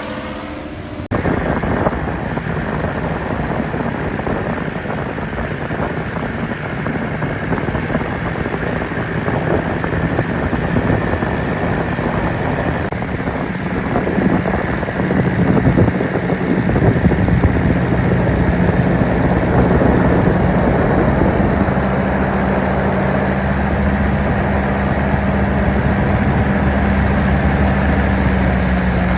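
Paramotor engine running with heavy wind noise on the microphone; a steadier engine tone comes through more clearly about halfway in.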